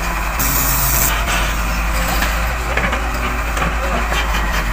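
Heavy diesel earthmoving machinery running with a steady low drone, a short loud hiss about half a second in, and scattered clattering knocks.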